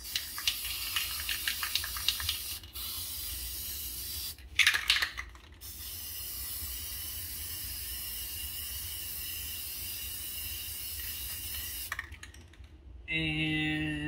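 Aerosol can of Rust-Oleum appliance epoxy spray paint spraying onto a refrigerator's side panel in hissing passes. The can's mixing ball clicks and rattles in the first few seconds and again in a short loud clatter about four and a half seconds in. After that comes one long steady spray of about six seconds that stops near the end.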